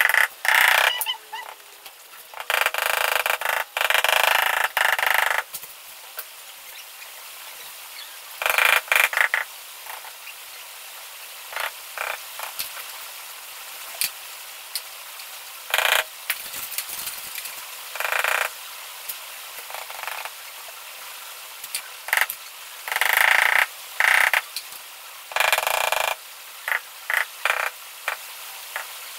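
A large floor tile being worked into its mortar bed: irregular bursts of scraping and rubbing, some lasting a few seconds, with a quick run of short taps near the end.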